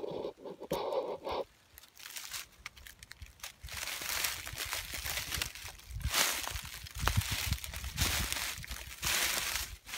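Footsteps crunching through dry fallen leaves, a loud crunch with a low thud about once a second from about four seconds in, after lighter rustling and crackling in the dry leaves.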